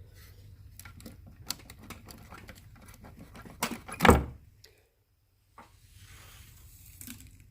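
Light clicks and knocks of small parts being handled, with one heavier thump about four seconds in.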